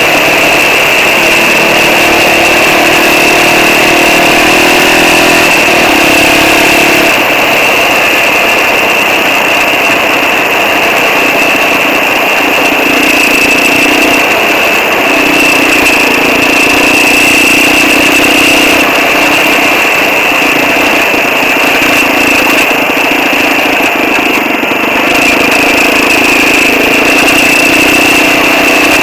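Quad bike (ATV) engine running under way on a dirt track, heard from on board, its engine speed shifting about a quarter of the way in and then holding steady.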